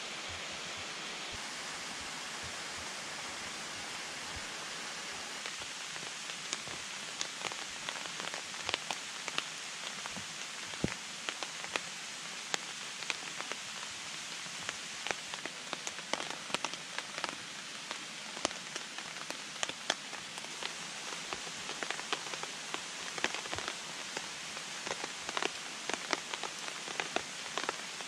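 Steady rushing of a mountain stream, with irregular raindrops tapping on a tarp overhead from about six seconds in.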